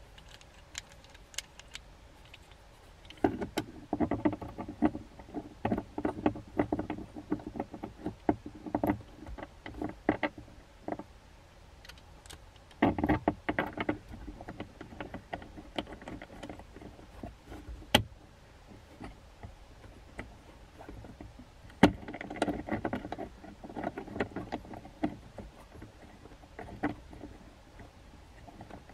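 Hands fitting a GoPro mount onto a dashboard phone and camera mount: the parts click, rattle and knock together in several busy spells with quieter pauses between, and a couple of single sharp clicks.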